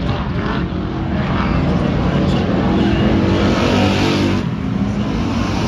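A pack of dirt-track stock car engines running hard around the oval, revving, and loudest about three to four seconds in.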